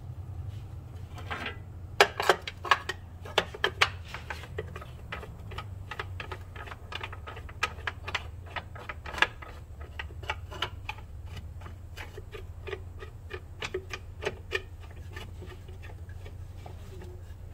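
Hand ratchet wrench clicking in short runs as a bolt is run in to fit a rear differential brace, over a steady low hum. The clicking stops near the end.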